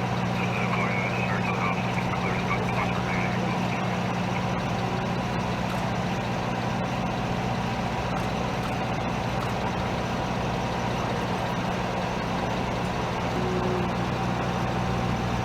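Idling vehicle engine, a steady low hum that does not change.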